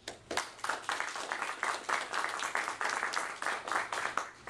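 Audience applauding, a dense spatter of hand claps that dies away near the end.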